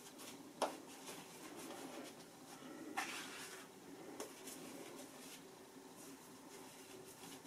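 Shaving brush swishing and scratching softly over a lathered, stubbly face, working up shaving lather, with two short clicks about half a second and three seconds in.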